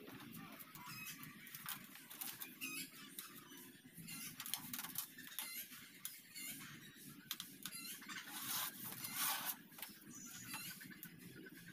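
Faint bird calls, short chirps repeated throughout, with chickens among them.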